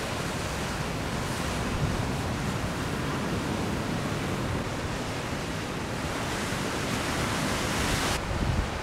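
Ocean surf and wind: a steady rushing hiss with wind rumbling on the microphone. The higher hiss drops away sharply about eight seconds in.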